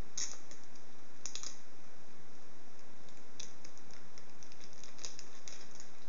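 Thin clear plastic protective film crinkling and crackling as it is handled and peeled, in short runs of sharp crackles: a couple near the start, then a denser scatter over the last three seconds.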